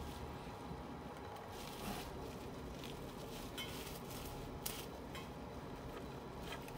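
Faint, scattered clicks and light taps of small metal fittings being handled, as a solenoid valve is fitted to the CO2 regulator on a stainless steel cylinder.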